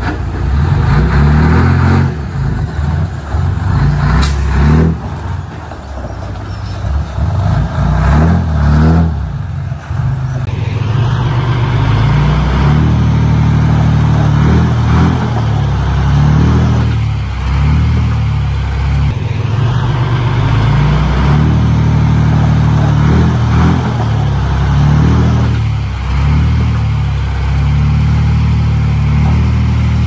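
Diesel engine of heavy earthmoving machinery running steadily, uneven with a couple of short knocks at first, then louder and more even from about a third of the way in.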